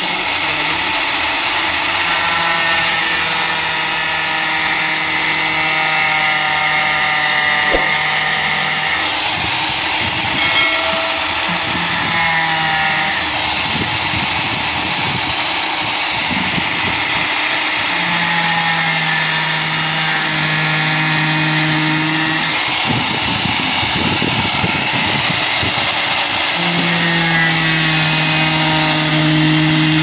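Electric angle grinder with a thin cutting disc running continuously while cutting through a plastic paint bucket. It makes a loud, steady whine whose pitch wavers and steadies again as the disc bites into the plastic.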